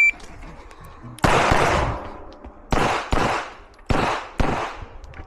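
A CZ Shadow 2 9mm pistol firing five shots at an uneven pace: the first about a second in, then a close pair and two more. Each shot rings on in a long echo. A shot timer's high start beep cuts off at the very start.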